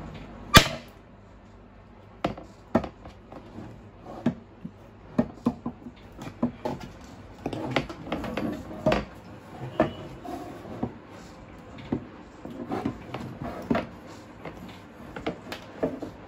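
Irregular clicks and knocks of a folding laptop table being assembled: a hard plastic tabletop and a steel wire leg frame handled and pushed together, with one sharp clack about half a second in.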